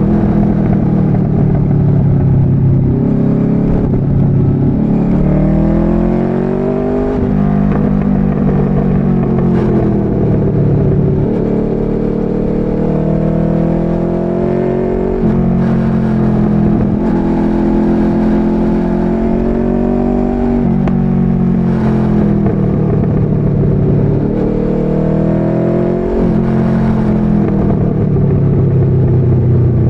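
Motorcycle engine heard from the rider's seat, pulling through the gears on the road. Its pitch climbs and then drops sharply at each shift, five times.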